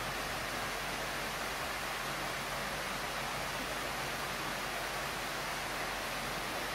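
Steady rush of a mountain waterfall: water pouring down a rock face and sheeting across a sloping rock slab into a pool, an even hiss with no breaks.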